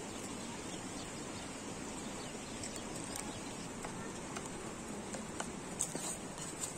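A spoon clicking against thin metal trays as eggs are beaten and seasoned flour is stirred, with scattered light clinks that come more often toward the end, over a steady outdoor background hiss.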